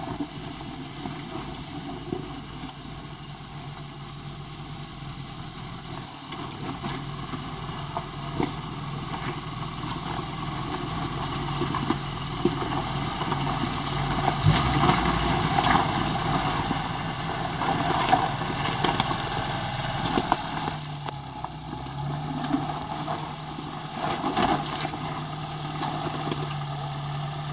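Lifted 4x4 SUV's engine running steadily at low revs as it crawls down a rocky creek bed, growing louder as it comes closer, with scattered knocks and crunches from rocks under the tyres.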